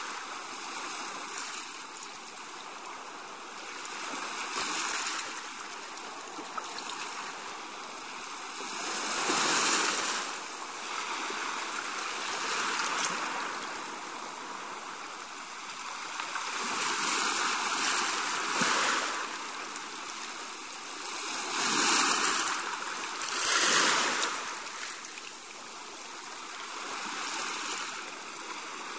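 Sea wash: seawater surging in and draining back, a steady hiss that swells into louder surges every few seconds.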